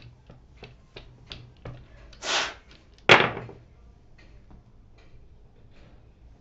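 Small dice clicking together in the hands, a short hiss, then the dice thrown onto the cloth-covered table with a sharp clatter about three seconds in.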